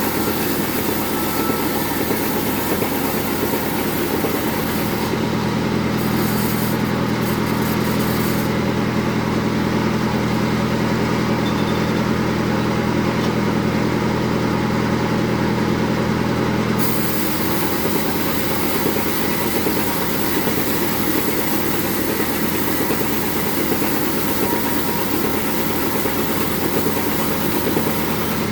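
Bandsaw sawmill running steadily while splitting jengkol hardwood. From about five seconds in, its low running note grows fuller and the hiss above it thins out for about twelve seconds, then it returns to the earlier sound.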